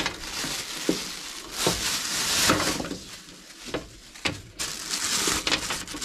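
Clear plastic packaging bags crinkling and rustling as they are handled and pulled about, with a few sharp clicks among the rustle.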